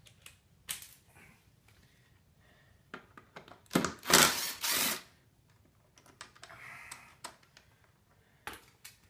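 Hand tools and metal footpeg parts clicking and clattering as a StegPegz footpeg extension is fitted to a dirt bike, with one louder rattle lasting about a second near the middle.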